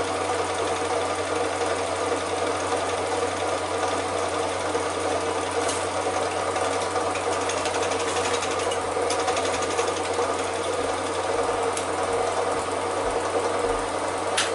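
Cine film projector running: a steady mechanical whir with a few faint clicks.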